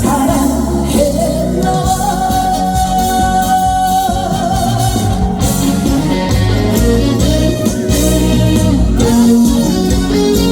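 Live trot song: a male singer sings the end of a chorus line, then the backing band plays on through an instrumental break.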